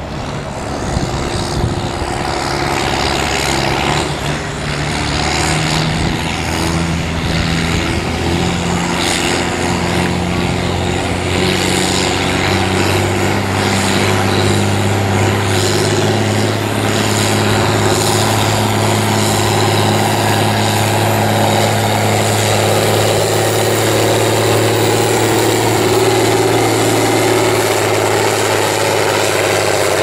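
John Deere farm tractor's diesel engine working hard at full throttle, pulling a weight-transfer sled. Its pitch climbs over the first several seconds, then holds loud and steady under the load.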